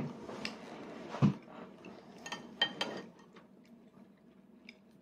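A toddler eating with a metal spoon: a knock about a second in and a few sharp, briefly ringing clicks of the spoon against a plastic plate near the middle, then soft chewing sounds.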